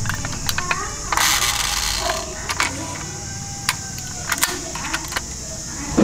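Toy ambulance being handled: scattered light clicks and rattles as it is turned in the hands and its door is opened, with a brief rustle about a second in.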